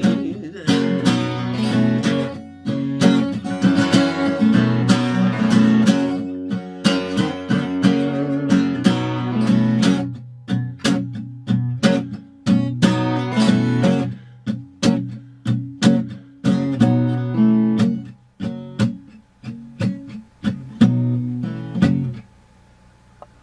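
Acoustic guitar playing an instrumental passage of strummed chords and picked notes, with no singing. The last chord dies away shortly before the end.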